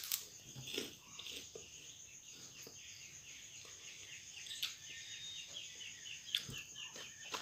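Faint chirping in the background: a fast run of short, evenly repeated high notes through the middle and later part. A few soft crunches come from a puffed snack being eaten.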